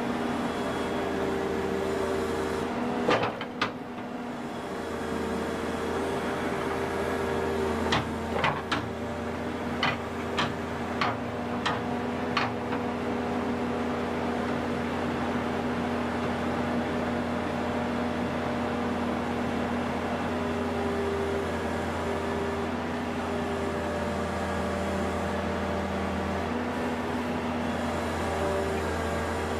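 Hydraulic excavator engine running steadily, its drone shifting in pitch now and then as the hydraulics take load. It is broken by sharp knocks, two a few seconds in and then a quick run of about seven, as the bucket drives wooden stakes into the riverbed to stabilise the bank.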